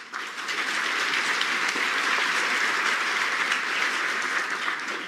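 Audience applauding. It builds within the first half-second, holds steady, then fades away near the end.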